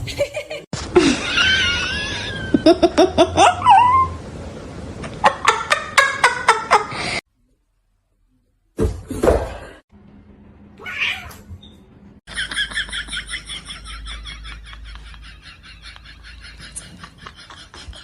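Cats meowing and yowling in drawn-out calls that rise and fall in pitch, broken up by abrupt cuts and a short silent gap.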